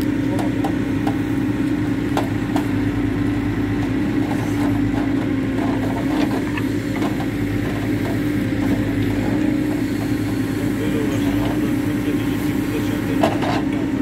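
Hidromek 102B backhoe loader's diesel engine running at a steady pitch while the backhoe arm digs soil, with a few short knocks from the bucket and linkage, the loudest near the end.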